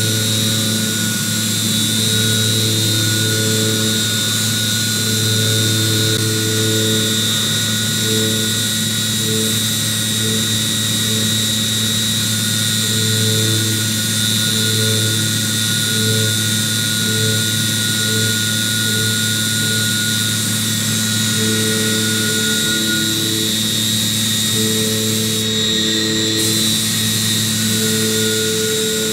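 CNC machining center milling hardened C45 steel with a 12 mm end mill: a steady high spindle whine over a low machine hum, with lower tones that switch on and off in short spells as the cut goes on.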